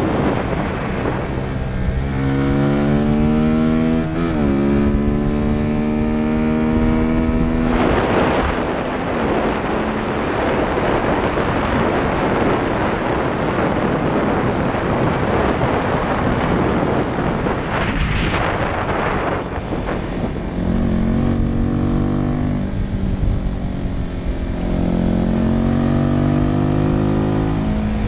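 Honda Winner 150 single-cylinder motorcycle engine heard from the rider's seat, revving up through the gears with a brief drop in pitch about four seconds in, as at a gear change. Loud wind rush on the microphone then covers it for a long stretch. Near the end the engine note rises and falls again.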